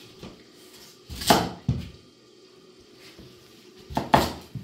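Large kitchen knife cutting through raw pumpkin and striking a wooden cutting board: two cuts, about a second in and again near the end, each under a second long with a sharp knock.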